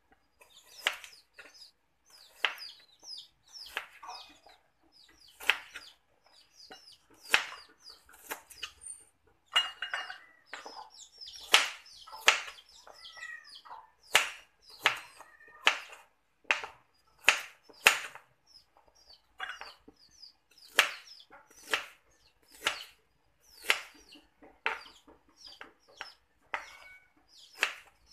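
Kitchen knife slicing shallots, garlic and ginger on a plastic cutting board: a sharp knock against the board with each cut, irregular, roughly one a second.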